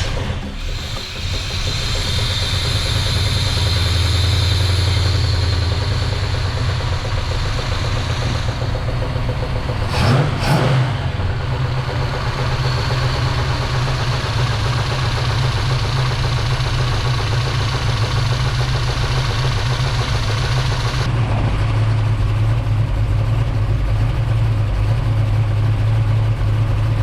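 1967 Chevy Nova's engine running just after being started, with a brief rev about ten seconds in. Its running carries a noise the owner does not normally hear, which he ties to where the dipstick sits in the freshly fitted stock oil pan.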